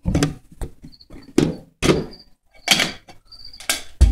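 A terrarium being opened by hand: a string of sharp knocks and clunks with short scrapes, the loudest near the end.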